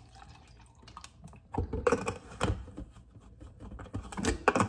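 Scattered taps, clicks and knocks as a cold brew coffee bottle is set down on a kitchen countertop and its cap is handled, louder about two seconds in and again near the end.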